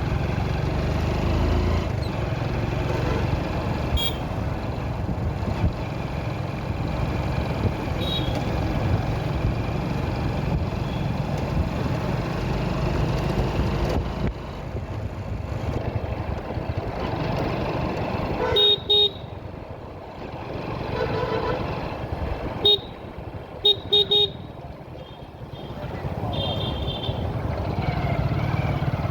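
Steady engine and road noise of a vehicle on the move in traffic. Past the middle come several short horn beeps: two quick ones, a single one, then two more. The running noise drops off for a few seconds around the beeps, as if slowing down, then picks up again.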